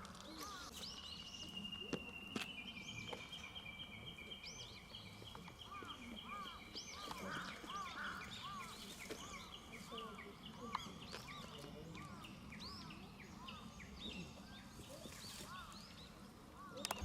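Outdoor ambience of many short bird chirps over distant voices. A steady high-pitched whine starts about a second in and fades out near the end.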